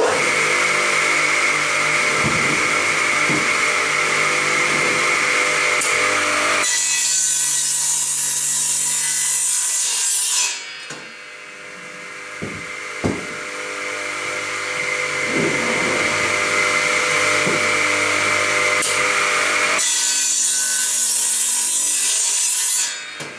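Craftsman 10-inch radial arm saw running and cutting wooden beams to length. Loud for the first ten seconds, then it drops and builds again to loud until near the end.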